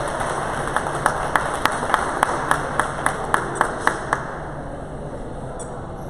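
A single run of about a dozen sharp, evenly spaced claps, roughly three or four a second, starting about a second in and stopping about four seconds in. Under them is the steady hum and murmur of a large indoor hall.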